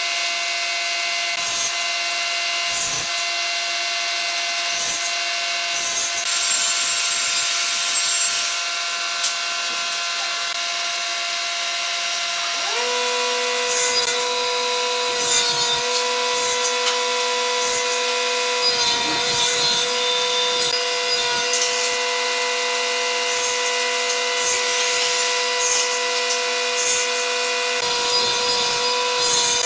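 A power tool or workshop machine running steadily, its hum made of several fixed tones that shift to a new, stronger set about 13 seconds in, with hissy sawing or rubbing noise coming and going over it.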